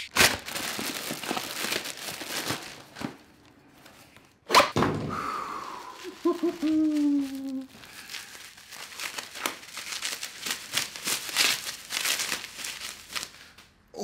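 Parcel packaging being torn open and wrapping crinkled by hand, with a sharp knock about four and a half seconds in. Around six seconds in a man lets out a drawn-out, falling 'ooh'.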